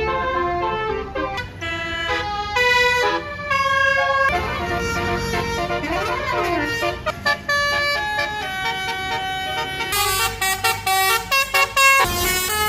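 Bus basuri telolet horn playing a quick tune of stepped notes, with a siren-like rising-and-falling glide about halfway through. Near the end it breaks into short choppy blasts.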